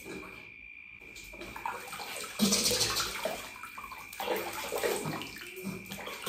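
Water running and splashing in a bathtub as a toddler's hair is wetted. It starts softly about a second in and gets louder a second or so later.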